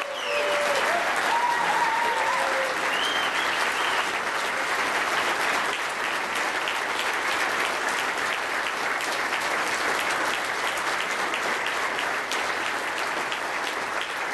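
Audience clapping steadily, a sustained ovation at the close of a speech, with a few voices calling out over it in the first three seconds.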